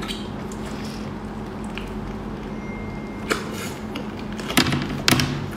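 Mouth sucking on a cooked lobster tail to draw the meat out: a short suck about three seconds in and two more near the end, over a steady low hum.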